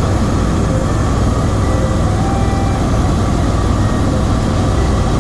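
Bell 407 helicopter in flight, heard from inside the cabin: a steady, loud rumble of the rotor and turbine engine, with no change in pitch.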